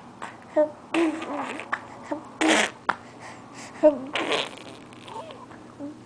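A four-month-old baby blowing raspberries: several short, wet spitting bursts of lip noise, the loudest about halfway through, mixed with brief coos.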